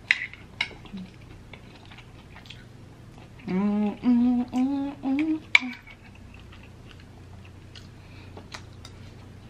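A woman humming a short tune of a few held notes that step upward, about three and a half seconds in, between the small clicks and chewing sounds of her eating with a fork.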